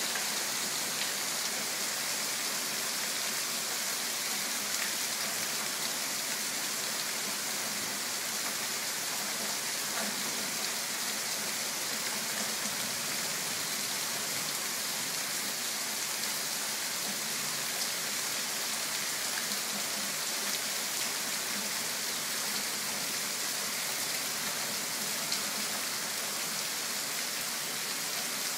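Thunderstorm rain falling steadily on trees and foliage: an even hiss that holds without a break.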